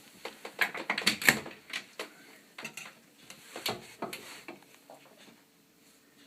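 Clicks and knocks of a carpenter's square being picked up and set against the door. A quick cluster comes about a second in, a few more around four seconds, then it goes quiet.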